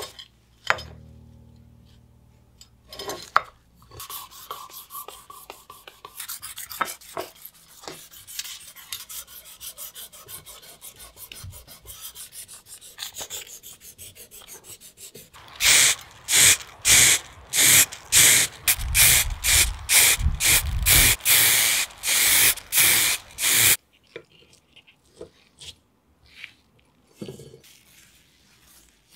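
Light handling clicks and faint scraping, then a run of loud rubbing strokes for about eight seconds, roughly two strokes a second, that stop abruptly.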